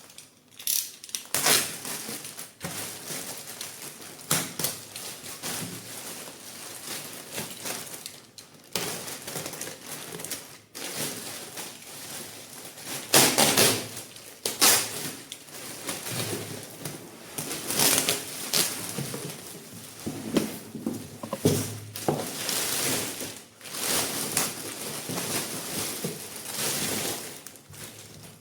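Hands unpacking and handling Bambu Lab A1 3D printer packaging and parts: irregular rustling, scraping and knocks, with a few louder clatters about 13 and 18 seconds in.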